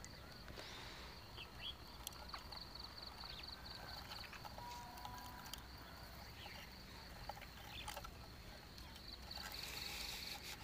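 Faint insect chirping, a high steady pulsing trill, with a few light clicks and rustles.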